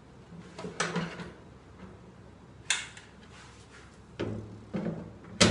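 Countertop electric oven's door opened and a metal baking tray slid onto its wire rack: a handful of sharp metal clanks and scrapes, the loudest near the end.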